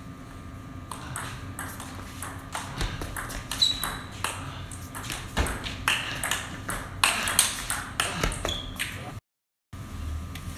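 Table tennis ball clicking off paddles and table in a rally, several sharp ticks a second, with two short high squeaks among them.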